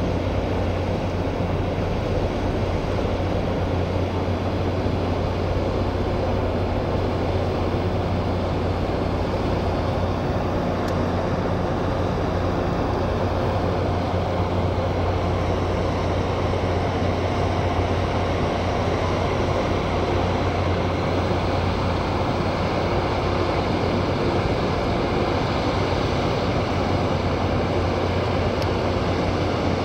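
Steady low hum of a 1,000-ton Japan Coast Guard patrol vessel's diesel engines running, a constant drone with a few steady tones over it.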